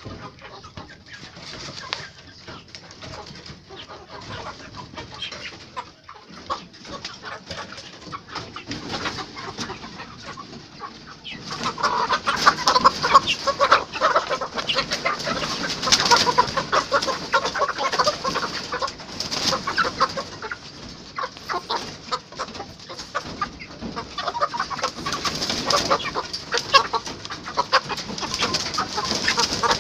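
A flock of local chickens clucking, faint at first and much louder and busier from about a third of the way in.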